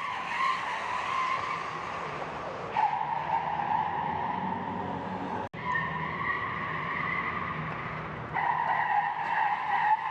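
Tires squealing on a smooth indoor floor as electric cars are driven hard through the turns of a test track. The squeal is long and steady, shifts in pitch several times, and breaks off for a moment about halfway.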